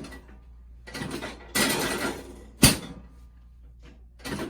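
One sharp thump about two and a half seconds in, from a chiropractic adjustment thrust on the treatment table, preceded by about a second of rustling movement on the table.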